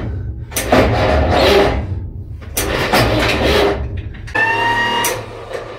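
Murphy inline-six diesel engine being cranked by its electric starter in three bursts of about a second each, with a high starter whine in the last one, not catching. The batteries lack the charge to spin it, as the words right after suggest.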